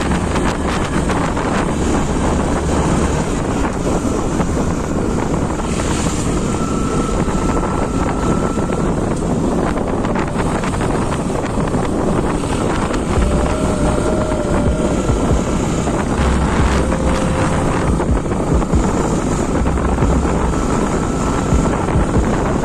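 Wind buffeting the microphone of a moving motorcycle, a loud steady rush over the low rumble of the engine and tyres on the road.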